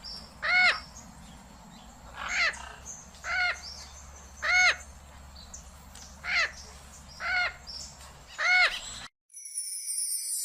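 Parrot calling: a series of short squawks, each rising and falling in pitch, about one a second. They stop abruptly about nine seconds in and give way to a high shimmering chime.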